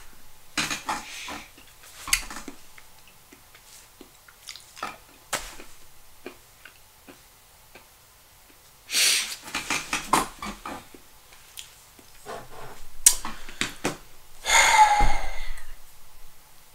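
Close-up breathing and mouth sounds: scattered small clicks and smacks, a short noisy breath about nine seconds in, and a longer breathy sigh with a falling tone near the end.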